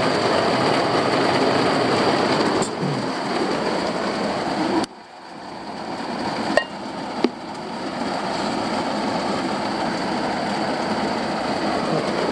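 Steady heavy rain drumming on a campervan's roof and body, with water getting in through leaks. The noise cuts out sharply about five seconds in and builds back up over the next couple of seconds, with two sharp clicks.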